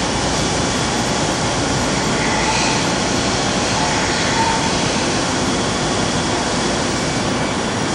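The 180-tool chain tool magazine of an Okuma MCR-B II double-column machining center, running with a steady, even mechanical noise.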